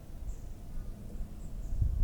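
A few faint, short, high bird chirps, distant, over a steady low outdoor rumble, with a brief low thump near the end.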